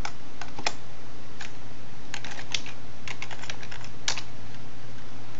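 Computer keyboard being typed: single keystrokes and short quick runs of key clicks, over a low steady hum.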